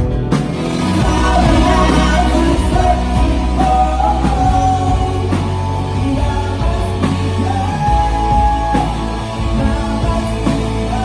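Live indie rock band playing: electric guitars, bass and drums, with a held vocal or guitar line over a steady low bass note.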